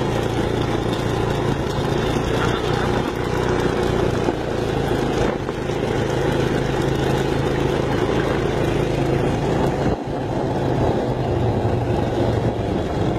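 Single-cylinder ATV engine running steadily at riding speed, with wind and tyre noise on the microphone; the engine briefly eases off about ten seconds in.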